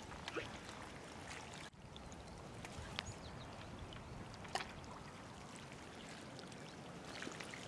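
Faint steady outdoor background noise with a few sharp ticks scattered through it, and a brief drop-out about a second and a half in.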